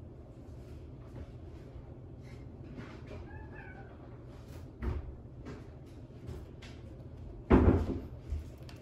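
A cat gives one short meow about three seconds in, with faint clicks of it chewing a raw duck foot between; a loud thump comes near the end.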